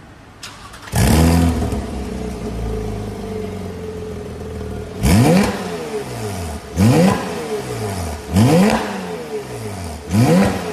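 Porsche 987.2 Cayman flat-six engine through an ARMYTRIX valvetronic exhaust: it starts about a second in with a loud flare, settles to a steady idle, then is revved sharply four times, each rev climbing and falling back to idle.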